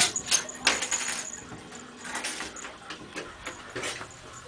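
A kitten's claws and paws scrabbling and skittering on the slick surface of a dry bathtub as it dashes about: irregular quick clicks and scrapes, busiest in the first second and a half, then more scattered.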